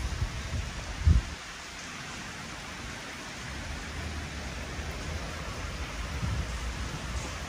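Steady rain falling on paving, an even hiss, with a low rumble underneath and a single thump about a second in.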